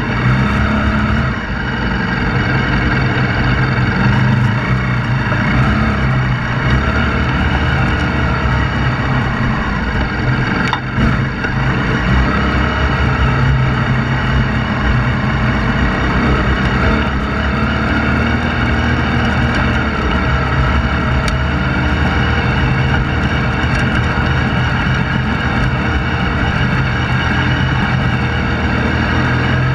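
Motorcycle engine running steadily at low revs while the bike is ridden, with slight changes in pitch but no hard revving.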